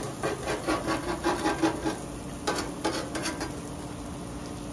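Metal spatula scraping across a flat-top griddle in quick repeated strokes for about two seconds, then a few more scrapes about halfway through before it settles.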